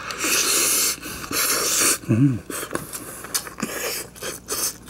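A person breathing hard twice through the mouth in long hissing breaths while eating, then a short hummed 'mm' about two seconds in, followed by small clicks of chewing.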